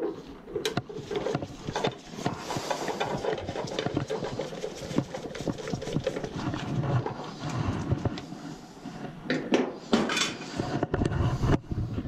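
Metal clinking, scraping and rattling of hand tools and fittings, with many small irregular knocks, as the steam boiler's controls are disconnected and taken off.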